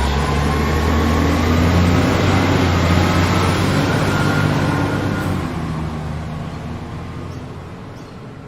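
A heavy truck passing on a highway: a loud engine drone and road noise that is strongest in the first few seconds, then fades steadily as the truck drives away.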